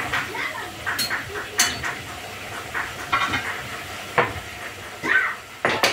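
Metal utensil clinking and knocking against cookware on the stove while stirring: several sharp clinks, one with a brief metallic ring, over a steady frying sizzle.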